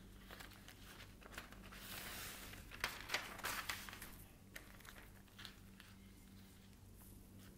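Thin plastic lamination film crinkling and rustling as it is handled and laid over paper, with a cluster of sharp crackles about three seconds in.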